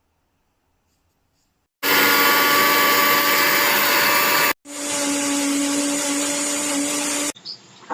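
Suruchi Elantra 800-watt mixer grinder's motor running at full speed in two runs: it starts abruptly about two seconds in and stops, then runs again for nearly three seconds with a steady hum before cutting off.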